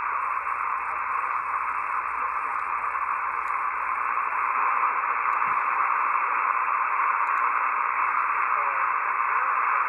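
Shortwave receiver hiss from an RTL-SDR dongle tuned to the 20-metre amateur band, heard through the receiver's narrow voice filter, with a very weak station barely audible under the noise.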